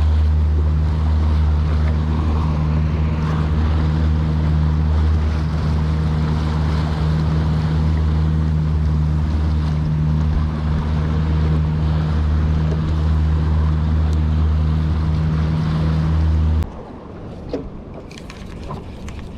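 Boat motor running steadily at a constant speed, with wind and water noise over it. It stops abruptly near the end, leaving quieter wind and water noise with a few small knocks.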